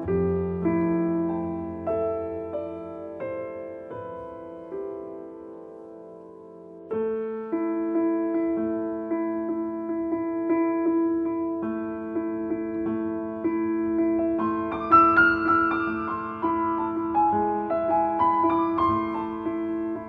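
Background piano music: a slow, gentle melody of struck notes that ring and fade, dying down to a lull about six seconds in and starting a fresh phrase about a second later.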